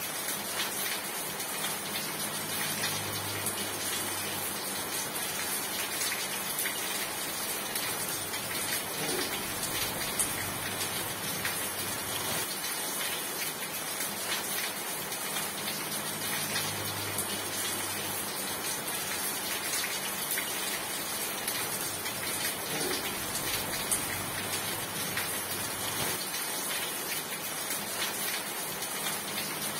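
Steady rain, an even hiss of many drops falling without a break. A faint low hum rises and fades a few times underneath.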